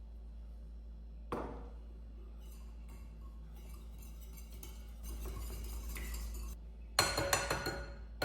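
Dishes and cutlery clinking in a kitchen: a single sharp knock a little over a second in, a soft hiss later, then a quick run of clinks and knocks near the end.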